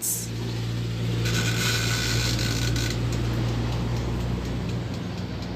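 Union countertop electric oven running while it preheats, giving a steady electrical hum, with a higher tone for a second or two near the start.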